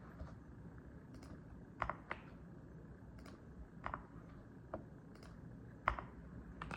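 Mechanical keyboard keys pressed one at a time: about seven separate keystrokes spaced unevenly, roughly one a second, rather than continuous typing.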